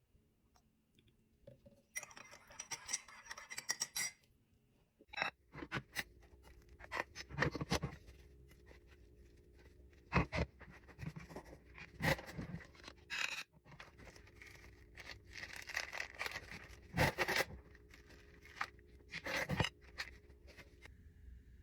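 Kitchen handling noises: a string of scrapes, clicks and knocks of utensils and dishes, with a low steady hum coming in about five seconds in.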